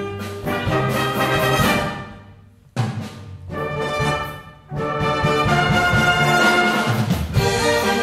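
Wind band playing, with brass prominent: a phrase that breaks off briefly just after two seconds in, a new entry, then full sustained chords through the second half.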